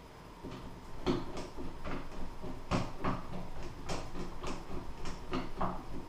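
Screwdriver turning a pass-through screw by hand into a lever door lock: a string of short scraping clicks, about two a second, starting about half a second in.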